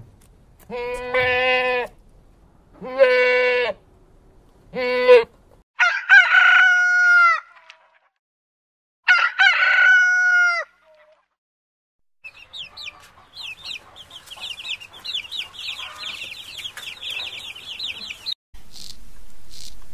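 A goat bleats three times, then a rooster crows twice, each crow ending in a falling tail. After a short gap, chicks peep in a rapid, continuous run of high chirps.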